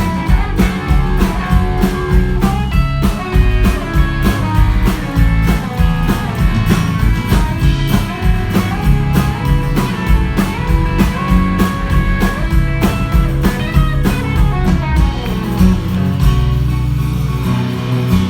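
Live rock band playing an instrumental break between verses: a guitar lead carries the melody over bass and a steady drum beat.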